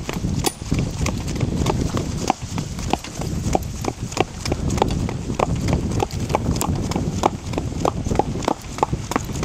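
Curly pony's hooves clip-clopping along a dirt road at about three beats a second while she pulls a harness cart, over a steady low rumble of the cart rolling.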